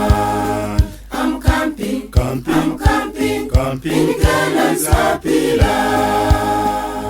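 Choir singing a gospel song in harmony over a steady low beat, with short choppy phrases in the middle, then a long held final chord near the end.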